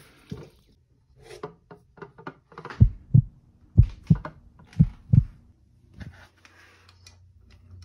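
Footsteps across a kitchen floor while the phone is carried: a run of six heavy low thumps, about two a second, among lighter clicks and knocks of the fountain being handled. A faint low hum comes in near the end.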